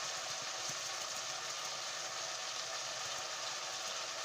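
Beef frying in a pan, a steady sizzle.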